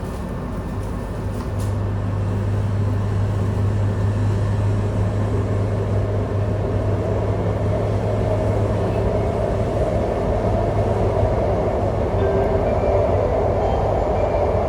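Alstom C751A metro train heard from inside the car as it gets under way: a steady low electrical buzz sets in about a second and a half in and holds over the running rumble of the train, which grows a little louder after the start.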